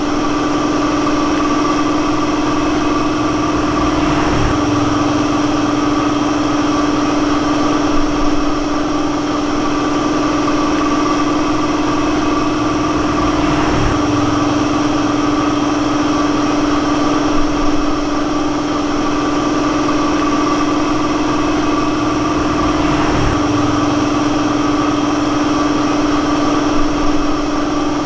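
A steady, unchanging machine drone at one constant pitch, swelling slightly about every nine seconds.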